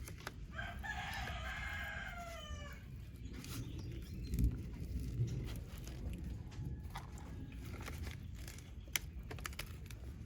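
A rooster crowing once, a drawn-out call of about two seconds that drops in pitch at its end, starting about half a second in.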